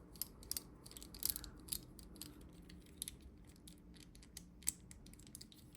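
Faint, irregular small clicks and taps of a plastic toy weapon being handled as its battery compartment is opened.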